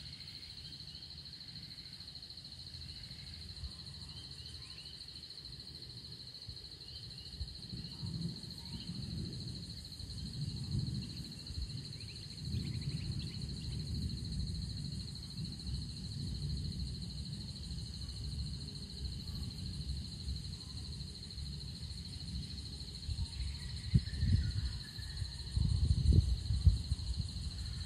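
Insects droning at one steady high pitch, with gusts of storm wind buffeting the microphone in low rumbles that grow stronger toward the end. Faint bird chirps come and go.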